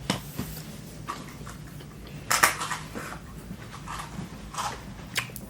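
A person eating, chewing a bite of bread, with a few short soft clatters of food being handled, the loudest about two and a half seconds in.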